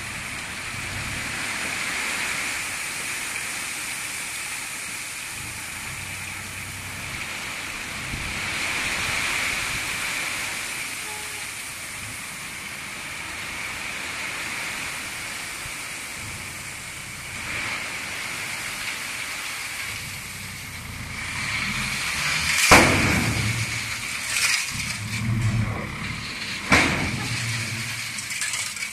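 Crushed stone sliding and pouring off the raised bed of an Isuzu Deca FXZ360 dump truck, a steady rushing hiss over the low hum of the truck's diesel engine. Over the last several seconds come several loud bangs as the truck pulls forward to empty the last of the load.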